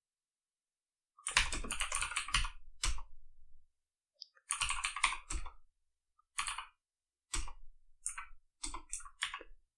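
Computer keyboard typing: several short runs of keystrokes with pauses between, starting about a second in.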